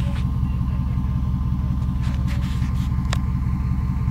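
Engine of an off-road vehicle idling close by, a steady low rumble with no revving. There is a single sharp click a little after three seconds in.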